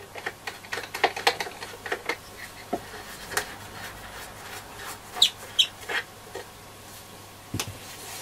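Small clicks and scrapes of a screwdriver working the handle screws out of a Roberts R747 radio's case, with two brief high squeaks about five seconds in and a knock near the end.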